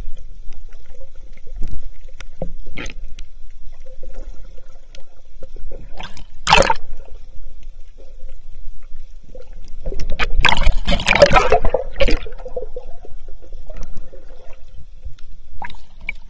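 Seawater heard underwater: a low, muffled water rumble with sudden bursts of bubbling and churning, one short burst about six and a half seconds in and a longer, louder stretch from about ten to twelve seconds in.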